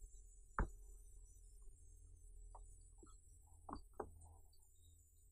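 Silicone pop-it bubbles pressed in one at a time with a pen tip, each giving a soft pop. One louder pop comes about half a second in, a few fainter ones follow, and two come close together near the four-second mark.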